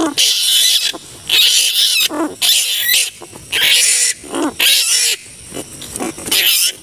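Large flying foxes (kalong) giving harsh, shrill screeching calls, roughly one a second. This is a recording of wild bats used as a hunting lure call.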